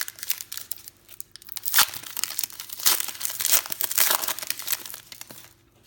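Trading card pack wrapper being torn open and crinkled by hand, a loud crackling that stops shortly before the end.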